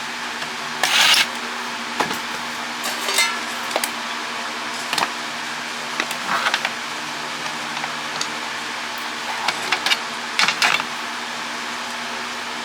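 Plastic and metal parts of a WiFi router clicking, clinking and scraping at irregular intervals as it is taken apart, over a steady background hum.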